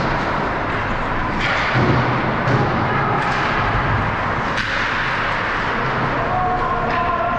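Ice hockey game in play: a steady wash of rink noise with several sharp knocks of stick, puck and boards scattered through it.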